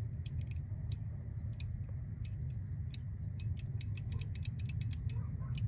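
Faint, irregular high-pitched ticking over a low steady rumble. The multimeter gives no continuity beep while the water heater's flow microswitch is pressed, a sign that the switch is not closing.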